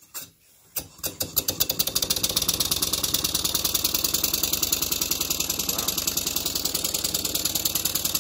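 Small model beam engine starting up: a couple of clicks as the flywheel is turned over, then about a second in it begins running, its exhaust beats quickly gathering speed into a rapid, even chuffing with a hiss.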